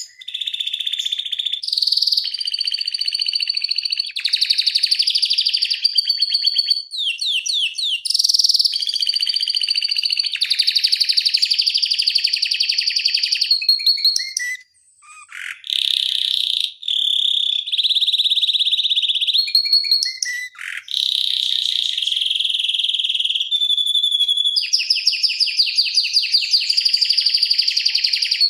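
Domestic canary singing a long, high-pitched song of fast rolling trills and rapid repeated notes, changing phrase every second or two with a brief break about halfway through.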